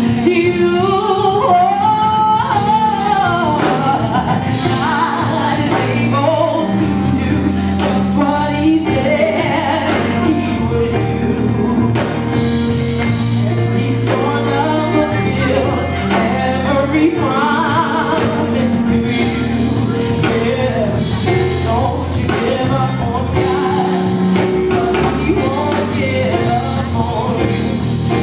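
Live gospel song: a woman sings into a microphone with long sliding vocal runs over a backing band, with drums and held bass notes underneath.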